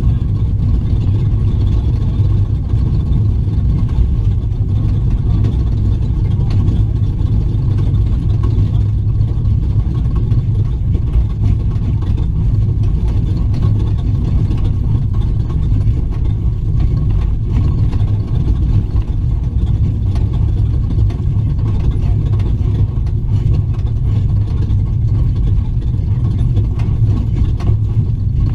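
Raptor desert race truck's engine running hard under load, heard from on board: a loud, steady low rumble with constant rattling and road noise from the rough desert course.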